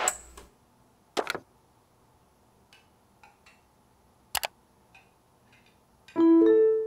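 Laptop trackpad clicks: a quick double click about a second in and a single click past four seconds, with faint taps between them. Near the end, music begins with held notes.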